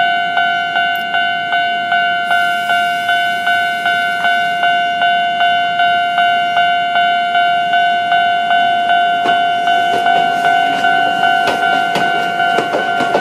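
Japanese level-crossing warning bell ringing at a steady pitch in repeated strokes, about two a second, as the crossing gate comes down. From about ten seconds in, the rumble and clatter of a train on the track join the bell.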